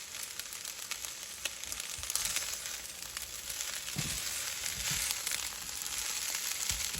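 Fried rice sizzling steadily in a hot pan, with a few low knocks as it is stirred.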